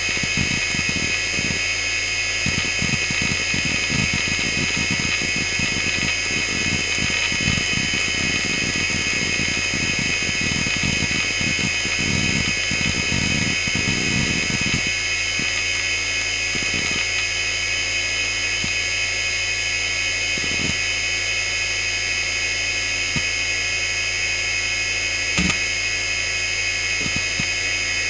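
Fujitsu M2903SGM 2.1 GB SCSI hard drive, seven platters and thirteen heads, spinning with a steady high whine while its heads seek. The seek clicks come thick and fast for about the first fifteen seconds under heavy disk access, then thin out to occasional single seeks a few seconds apart.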